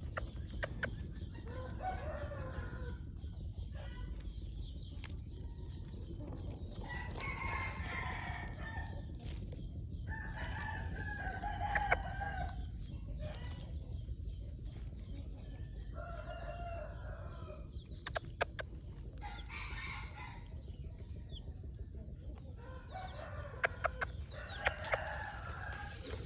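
Bantam rooster crowing and clucking, about six calls a few seconds apart, over a steady low rumble with a few sharp clicks.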